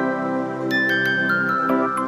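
Background music: sustained chords with a run of short notes stepping downward, starting just under a second in.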